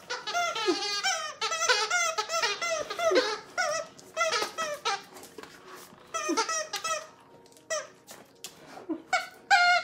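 Squeaky dog toy being chewed and shaken by an English mastiff puppy. It gives a rapid string of short, wavering squeaks for the first few seconds, then scattered squeaks with pauses between them.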